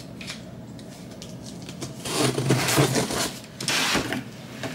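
Cardboard shipping box being opened: packing tape slit and torn with scissors, then the cardboard flaps pulled apart. It makes a rough, rasping scrape for about two seconds, starting about two seconds in.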